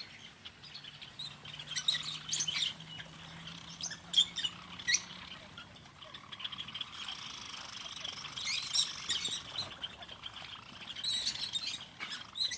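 A flock of small birds chirping and chattering, many short calls overlapping, with louder clusters about two seconds in, around eight to nine seconds, and near the end.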